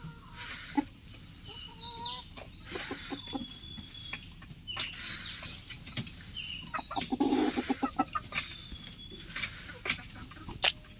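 Chickens clucking and calling in a run of short, irregular calls, with a louder stretch about seven seconds in.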